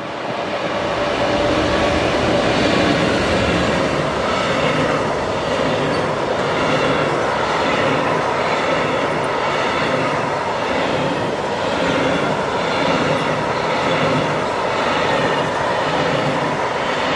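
Freight train wagons rolling past at speed: a steady rumble and clatter of wheels on rail that builds over the first second or two, then holds, with a pattern repeating about once a second as the wagons go by.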